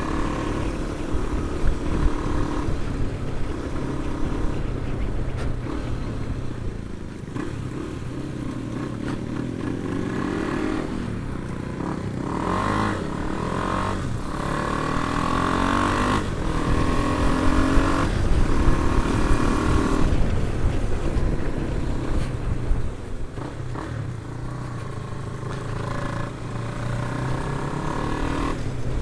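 KTM Adventure motorcycle engine running under way, its note rising and falling with the throttle through the bends, over a steady low rumble of wind and road.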